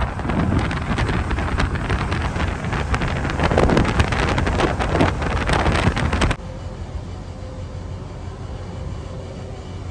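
Wind buffeting the microphone, with road noise from a moving vehicle, loud and gusty. It cuts off suddenly about six seconds in, leaving a quieter steady hum.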